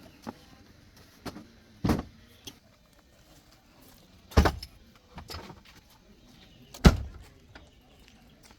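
A series of irregular knocks and thuds, with three louder ones about two and a half seconds apart, the last the loudest, and lighter clicks between them.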